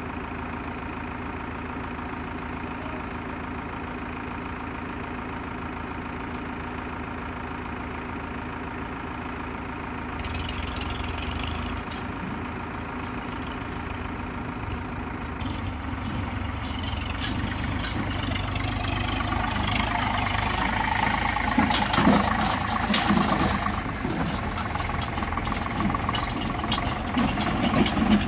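Diesel engine idling steadily, then working harder and louder in the second half, with several sharp clanks and knocks.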